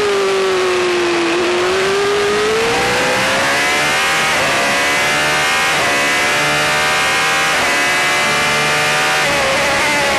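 Onboard sound of an Auto GP single-seater's Zytek V8 engine, with a steady rush of wind. The pitch sinks as the car slows through a corner, then climbs under hard acceleration with three quick upshifts, each cutting the pitch briefly, and falls again near the end as the car brakes.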